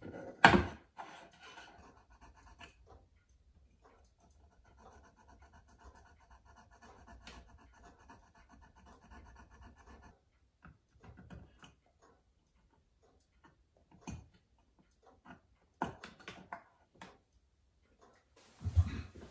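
Light scraping and small clicks of a fine hand tool working on a pocket-watch case ring, with a sharp click about half a second in and a dull knock near the end.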